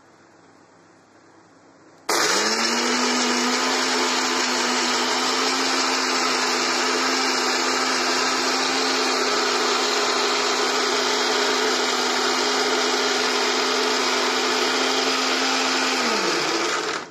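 Elgeen electric mixer grinder running with eggshells and a little water in its steel jar, grinding the shells to scour the jar clean. It starts about two seconds in, the motor hum rising quickly to a steady pitch, runs for about fourteen seconds, then is switched off and winds down with falling pitch.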